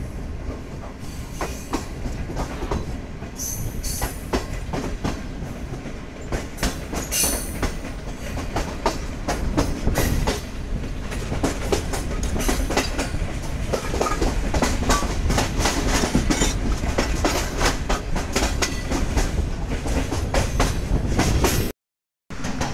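Green Line Express passenger coaches rolling along the track, the wheels clattering over rail joints and points in an irregular click-clack over a steady rumble, heard through an open door of the rear coach. The sound breaks off for a moment near the end.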